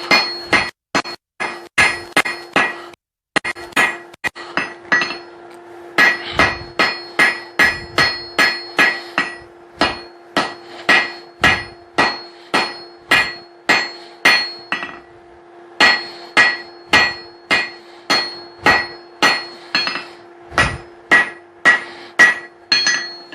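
A hand hammer strikes hot steel on an anvil in steady runs of about two blows a second, with short pauses. Each blow rings, and the steel is being drawn out into the chisel-point taper of a hammer eye punch. A steady hum runs underneath.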